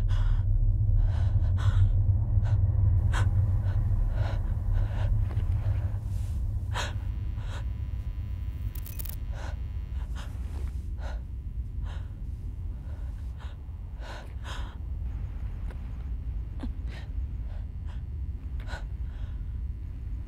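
A woman's short, irregular gasping breaths over a deep, steady drone that is loudest in the first few seconds and then eases off.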